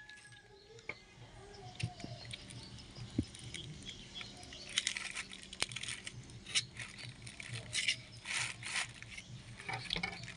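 A knife scraping and prying the large scales off a red arowana, in irregular scratchy clicks and scrapes that come thicker in the second half.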